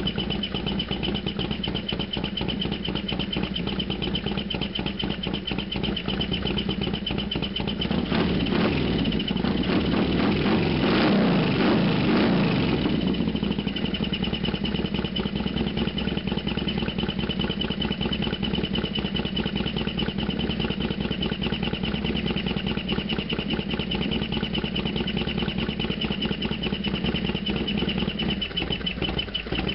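Harley-Davidson FXDX Dyna Super Glide Sport's Twin Cam V-twin engine running steadily, with a louder, fuller rush for about five seconds starting some eight seconds in.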